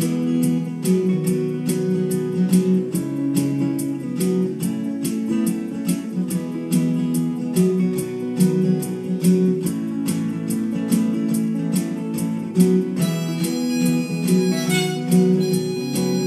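Acoustic guitar strummed in a steady, even rhythm. A harmonica on a neck rack joins in near the end with long held notes over the strumming.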